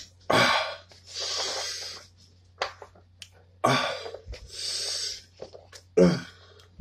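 A man breathing hard through his open mouth against the burn of a superhot pepper: a forceful breath out followed by a long hissing breath in, twice, then a short grunt near the end.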